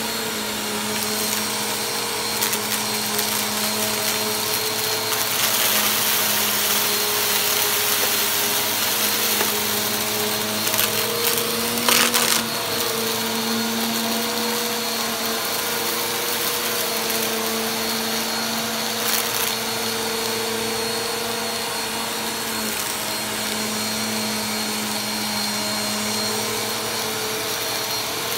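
Bagless upright vacuum cleaner running steadily on carpet, its motor hum wavering a little in pitch as it is pushed back and forth while it picks up fine dirt with a very light crunch. A brief, louder crackle comes about twelve seconds in.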